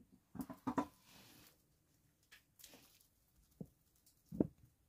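Flat stone slab knocking and scraping against the rock as it is moved by hand: a quick cluster of clunks about half a second in, a short scrape, then two single knocks near the end.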